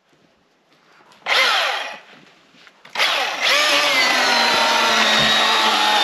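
Chainsaw starting up: a short burst about a second in that winds down in pitch, then from about three seconds in it runs steadily.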